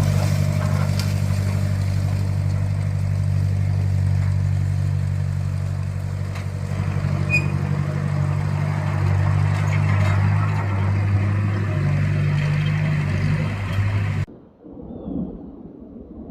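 An engine running steadily at an even, low pitch. It cuts off abruptly about fourteen seconds in, leaving only faint, quiet sounds.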